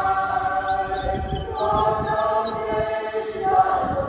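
A choir singing a slow hymn in long held notes, moving to a new note about one and a half seconds in and again near the end.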